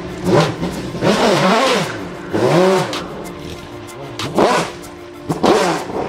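Dubbed car engine sound effect revving in about five blips, with quick rises and falls in pitch and a longer rev about a second in, over background music.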